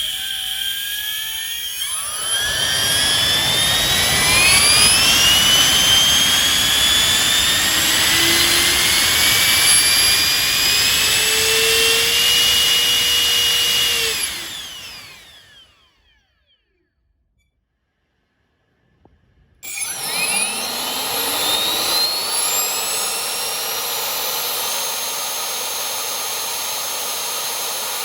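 A small high-speed electric turbo spooling up: its whine climbs steadily in pitch for about twelve seconds, then winds down to a stop. After a few seconds of silence it spins up again quickly and settles into a steady whine.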